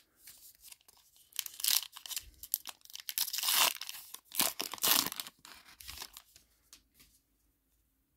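A 2023 Topps Heritage baseball card pack's foil-lined wrapper being torn open by hand, a run of tearing and crinkling noises that is loudest midway and dies away near the end.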